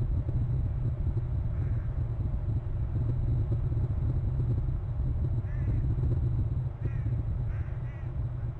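Low rumble of wind buffeting an outdoor microphone, with a few short bird calls in the second half.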